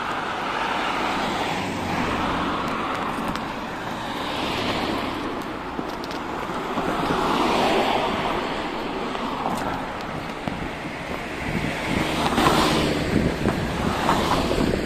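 Road traffic: cars passing one after another, their tyre and engine noise swelling and fading, with the loudest pass near the end.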